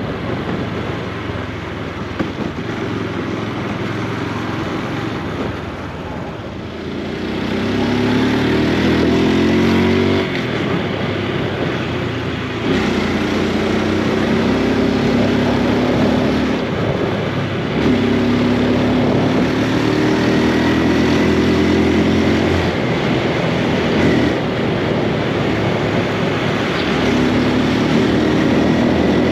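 Honda Super Cub C125's single-cylinder four-stroke engine running under way. Its note rises in several steps and drops back between them as the bike accelerates and shifts up through the gears.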